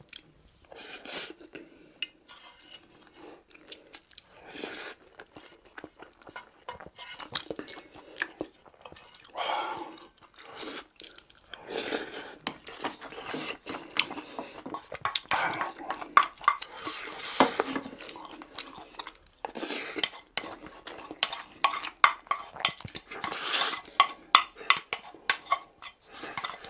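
Close-up eating sounds: a man chewing mouthfuls of braised tofu and rice, with a wooden spoon scraping and knocking against the bowl in irregular clicks.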